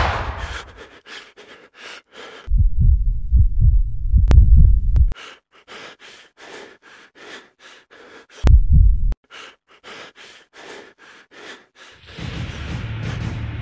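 A person running and panting in quick, rhythmic breaths, about three a second. Twice a loud, deep rumble swells over it, and a steady low hum comes in about twelve seconds in.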